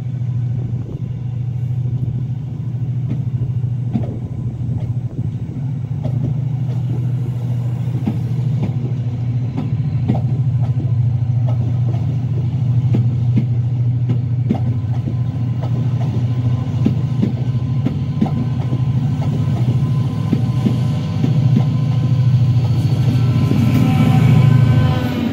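Train moving along the platform past close by: a steady low rumble with frequent wheel clicks over the rail joints. It grows louder near the end as the locomotive comes past.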